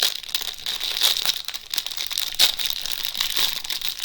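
Small plastic bags of diamond-painting drills crinkling and rustling as they are handled, a run of irregular crackles.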